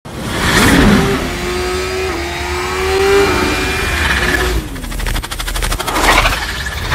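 Intro sound effects: a whoosh, then a steady engine-like revving tone that rises slightly and glides down about four seconds in, a fast rattling run of clicks, and a second whoosh near the end.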